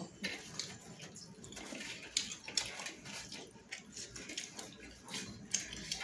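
Close-up eating sounds: wet chewing and lip smacks, mixed with the light scraping of fingers working rice on a steel plate, in irregular short clicks.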